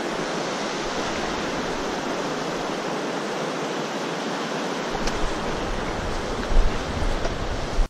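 Steady rushing noise of running water, like a creek or small waterfall. From about five seconds in, low rumbles of wind buffet the microphone. The sound cuts off suddenly at the end.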